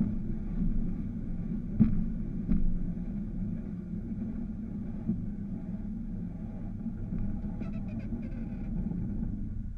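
Railroad speeder's small engine running steadily as the motorcar rolls slowly along the rails, with a couple of sharp clanks about two seconds in. The sound drops off just before the end as the car comes to a stop at the crossing.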